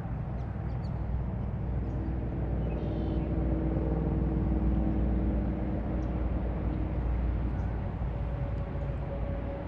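An engine running, a low steady rumble with a faint hum, growing louder toward the middle and easing off again.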